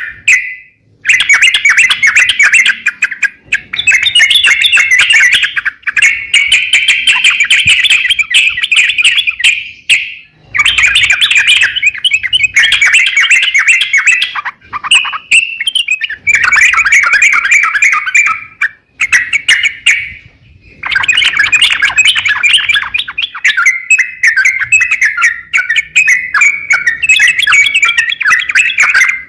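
Crokcokan songbird singing vigorously: long runs of rapid, chattering chirps, each several seconds long, broken by brief pauses of about a second.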